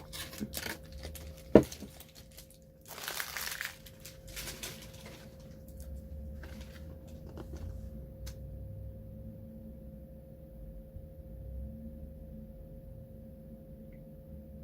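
Plastic snack wrappers crinkling as they are handled, with one sharp knock about a second and a half in. The rustling dies away after about five seconds, leaving a faint steady hum.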